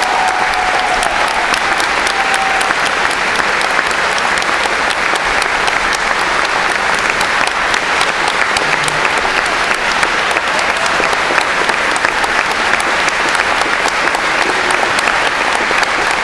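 Audience applauding steadily, with dense clapping throughout.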